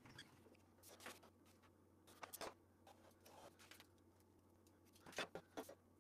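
Faint handling noise from a thin aluminum strip and sheets of paper on a workbench: a few light taps and rustles, the loudest just after five seconds, over a low steady hum.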